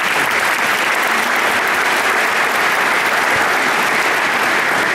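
Audience applauding steadily in a large hall, with many hands clapping at once.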